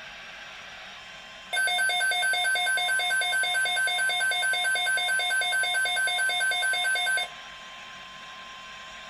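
Electronic alert tone beeping rapidly, several beeps a second, for about six seconds before it cuts off.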